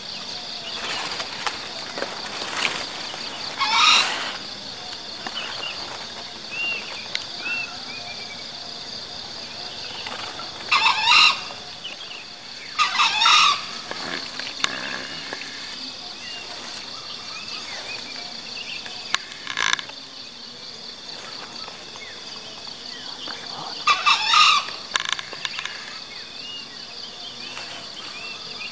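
Green junglefowl crowing: about four short, sharp crows several seconds apart, over a steady high insect drone and faint chirps of small birds.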